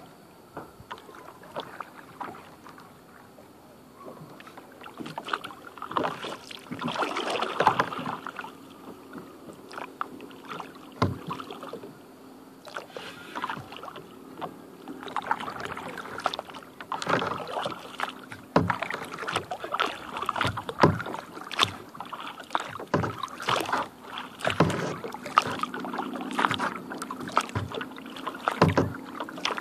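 Kayak paddle strokes dipping and pulling through calm lake water, with splashing and dripping and occasional sharp knocks. It is quieter for about the first four seconds, then the strokes come in an irregular, continuing series.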